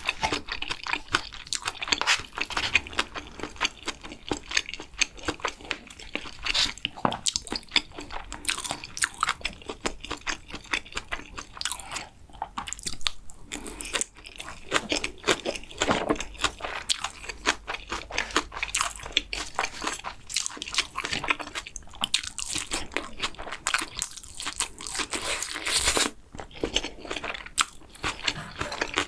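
Close-miked chewing and crunching of food in the mouth, a constant run of small crunches and clicks.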